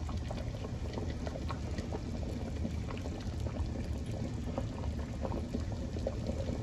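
Chicken pieces and broth at a rolling boil in an enamel stockpot: steady bubbling with many small irregular pops.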